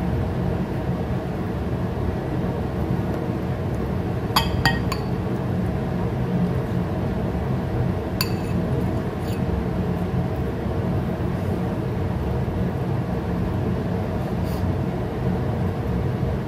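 A metal fork clinking against a ceramic bowl: a quick run of three clinks about four and a half seconds in, then another near eight seconds and a fainter one a second later, over a steady low background rumble.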